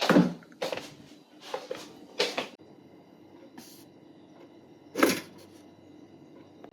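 A quick run of short knocks and clatters, like cupboard doors or kitchenware being handled, then one more knock about five seconds in.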